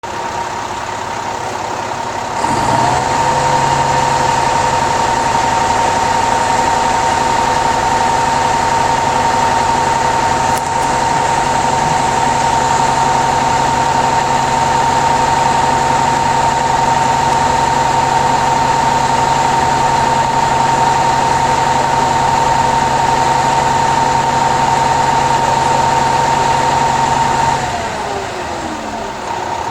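Utility truck engine running with a steady whine. About two seconds in it steps up to a higher speed and holds, then winds down near the end before picking up again.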